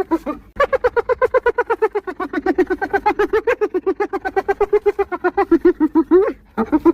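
Spotted hyena giggling: a long run of quick, pitched, laughing notes, about seven a second. It runs unbroken for nearly six seconds, with short pauses about half a second in and near the end before it starts again.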